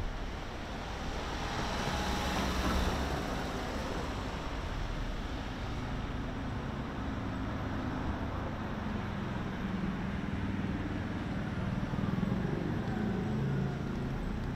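Street traffic: a car drives past, its tyre noise swelling and fading about two to three seconds in, then a low engine hum from traffic toward the end.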